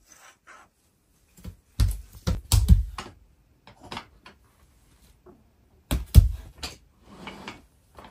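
Wooden toy train track pieces knocking and clacking against each other and the wooden floor as they are fitted together: a cluster of knocks about two seconds in, and another about six seconds in, with a few lighter taps between.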